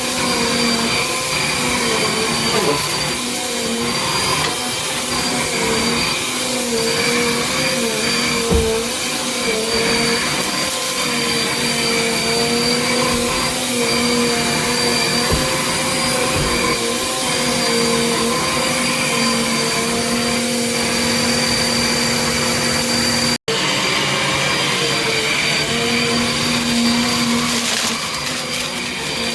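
Small Bissell vacuum running steadily with a hum, a high whine and airflow noise, its pitch wavering slightly as it is worked over the floor. A few clicks of grit are sucked up through the brushroll. The sound cuts out for an instant about two-thirds of the way through.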